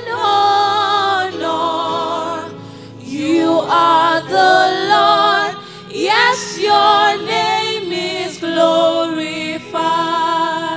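Gospel worship singing with a choir: long held and sliding sung phrases, in short lines with brief breaks between them, over steady instrumental backing.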